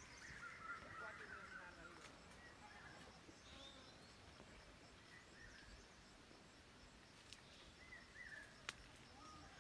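Faint bird chirps over quiet outdoor garden ambience, in short scattered phrases, with a sharp click near the end.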